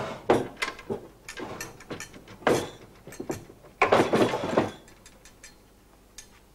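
Metal cutlery clinking and clattering on a table in a series of sharp knocks, with a longer rattle about four seconds in as a sideboard drawer is pulled open; it goes quiet for the last second or two.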